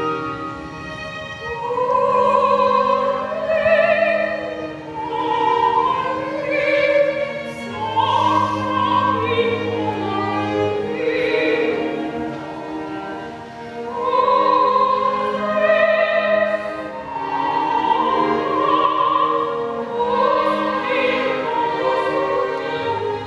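An opera singer sings an aria in long, wavering held notes over an instrumental accompaniment. The voice comes in about a second and a half in.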